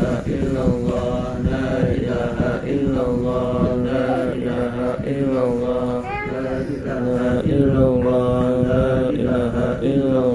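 Group of men chanting devotional verses together in unison, in long held notes.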